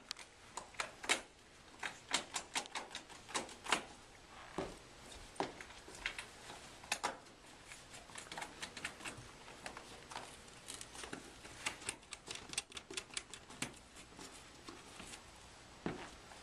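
Irregular clicks and light knocks, sometimes in quick runs of several a second, from fitting a folding kayak's washboards to its cross frames with T-bolts and star knobs.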